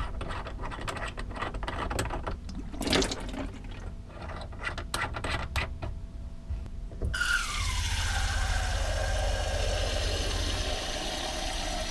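Small metallic clicks and taps as a faucet aerator is unscrewed and swapped by hand, with one louder knock. About seven seconds in, the tap opens and water from a flow-restricting aerator runs into a plastic measuring jug, its tone sliding down over a few seconds, while a low steady hum starts underneath.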